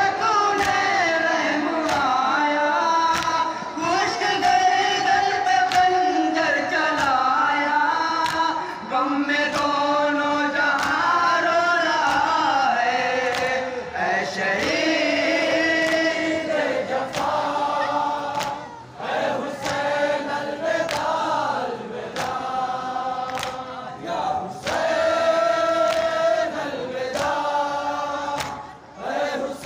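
A group of men chanting a nauha (Shia mourning lament) in chorus, with the regular slaps of matam, hands striking chests, keeping the beat.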